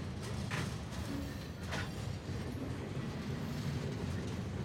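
Freight train's tank cars, flatcars and boxcars rolling past: a steady low rumble of steel wheels on rail, with two sharper clacks about half a second and nearly two seconds in.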